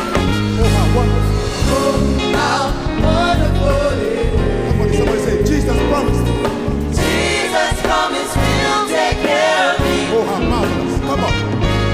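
Mixed gospel choir singing live, women's and men's voices together, over instrumental backing with a strong steady bass.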